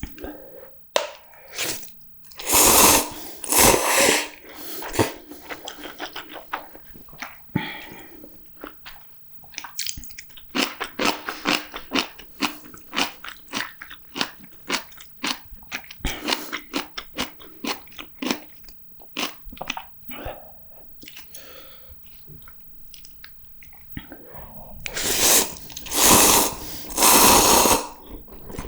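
Close-miked eating sounds: chewing and biting with many quick wet clicks, broken near the start and again near the end by a few longer, loud, noisy bursts.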